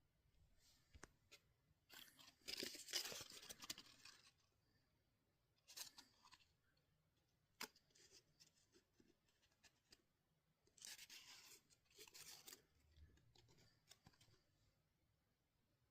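Faint scraping and rustling in a few short spells, with several sharp clicks, from objects being handled.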